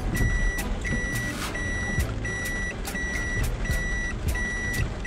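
Reverse warning buzzer of a Daihatsu Hijet Cargo van beeping inside the cabin as it backs into a parking space: a steady high beep about half a second long, repeating roughly every 0.7 s, with a low rumble from the van underneath.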